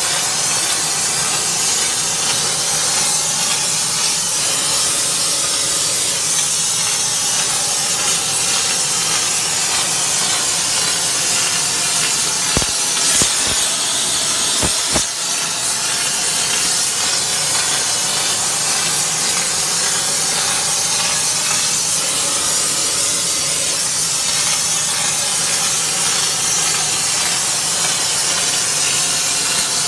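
A stone-flaming machine's gas torch burning with a loud, steady hiss as it plays its flame over a stone slab to give it a flamed finish. A few sharp clicks come about halfway through.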